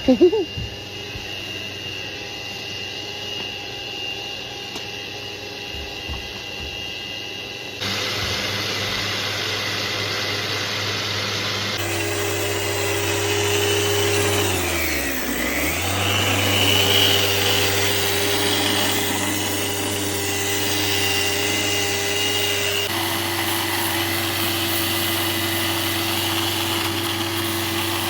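Festool electric sander running steadily on a fibreglass boat hull's gelcoat bottom, with a sharp knock at the start. Its pitch dips and recovers once midway, and the sound changes abruptly a few times between spliced clips.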